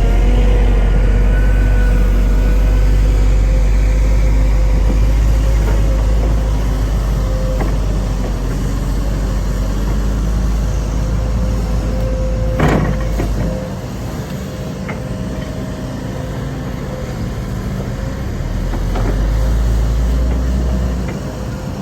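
Heavy diesel earthmoving machinery running with a deep, steady rumble and a held whine. A single sharp knock comes a little past the middle, after which the deep rumble falls away, then swells again near the end.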